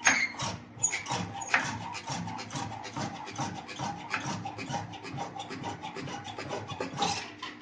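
Resistance (contact) welding machine joining stainless-steel sheet for a chimney casing: a rapid series of sharp clicks, several a second, over a low steady hum.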